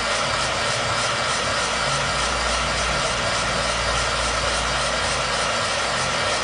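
Heat gun running steadily, a constant rush of blown air with a faint low hum, heating a laptop's NVIDIA graphics chip to reflow its solder balls. This is a home fix for vertical blue lines on the screen, in place of a reballing.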